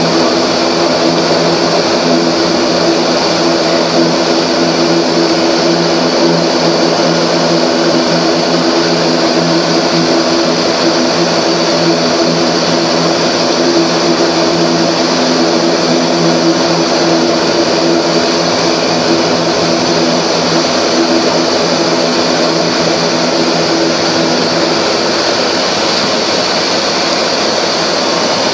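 ATR 42's twin turboprop engines heard from inside the cockpit while the aircraft taxis: a steady drone with a low hum of propeller tones and a hiss on top.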